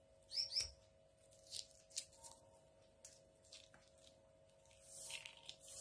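Soft tearing and rustling of pomelo pith and segment membrane being pulled apart by hand, in short scattered strokes and then a longer rustle near the end. Two quick high chirps sound about half a second in, over a faint steady hum.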